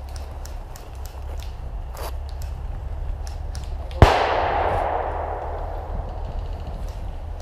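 An airsoft pyrotechnic grenade going off with one sharp bang about four seconds in, echoing through the forest and dying away over about two seconds. A steady low wind rumble and scattered light clicks run underneath.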